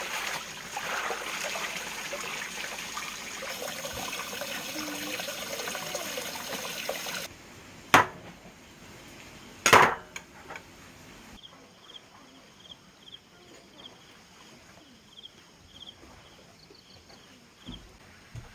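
Water running or splashing steadily for about seven seconds, then cutting off. Two sharp knocks follow, a couple of seconds apart, then a quiet stretch with a faint series of short high chirps.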